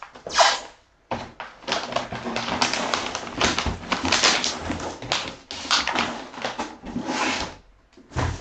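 Cardboard box and brown wrapping paper rustling and scraping as paper-wrapped packages are handled and lifted out of the box. There is a short sharp rustle about half a second in, then continuous uneven rustling that eases off near the end.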